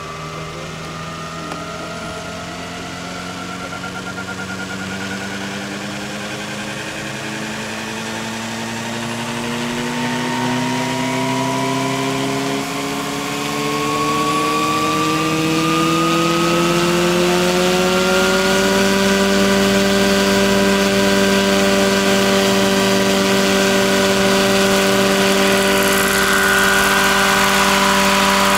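Electric RC scale helicopter with a 2 m rotor spooling up: the motor and drive whine rise together in pitch and loudness for about 18 seconds. It then holds a steady pitch with the rotor at flight speed.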